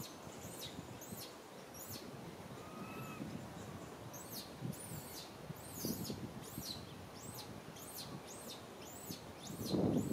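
A baby macaque crying in shrill, high-pitched squeals in rapid series, about three a second: a short bout at the start, a pause, then a longer bout. Near the end a louder, lower burst of noise comes in.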